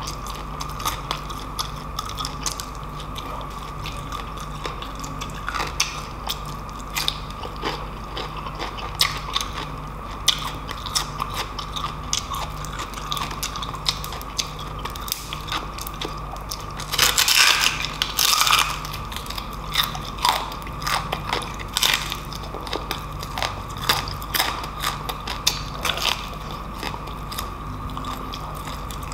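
Close-miked biting and chewing of crispy deep-fried pork knuckle, the crunchy skin crackling in many small crunches, with a loud burst of crunching past the middle.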